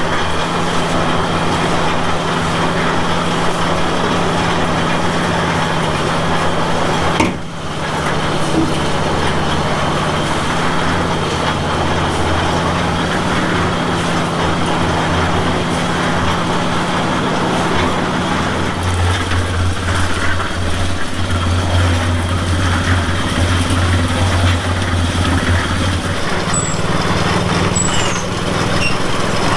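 Small engine running steadily, its low note changing about two-thirds of the way through as the load shifts.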